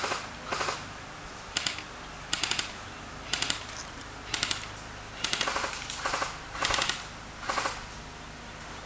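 Airsoft gun firing in short rapid bursts of clicking shots, about a dozen bursts a few tenths of a second apart or more.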